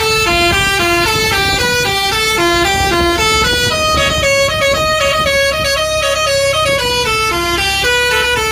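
Bus's Basuri telolet horn, a multi-note musical air horn, playing a quick tune of stepped notes, holding one note for about three seconds midway before the tune resumes; a low engine rumble underneath.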